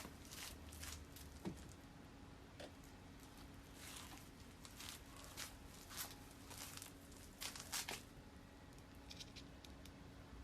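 Faint, irregular clicks and rustles of handling, a cluster of them near the end, over a faint steady hum.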